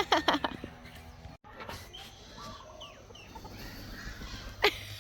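Chickens clucking: a quick run of loud, squawking clucks at the start, fainter clucks in the middle, and one more loud squawk near the end.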